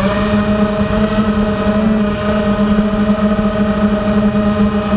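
Nighthawk 280 FPV quadcopter's brushless motors and propellers whining at a steady throttle, heard through the quad's own onboard camera.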